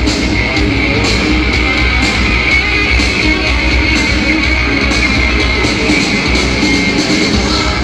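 Live hard rock band playing a guitar-led passage of the song, electric guitar over bass and drums, with no vocal in this stretch.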